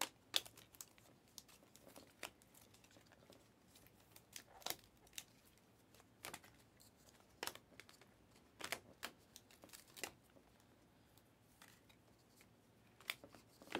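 Faint, irregular clicks and snaps of glossy Panini Mosaic basketball cards being flipped through one after another in the hands, card sliding off card.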